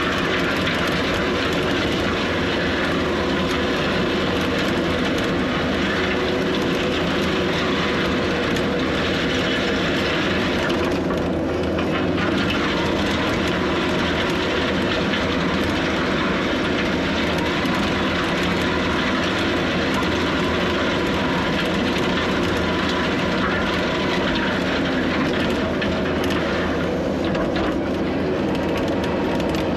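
Heavy diesel earthmoving machine running steadily under work, its engine drone and hydraulics at a constant level.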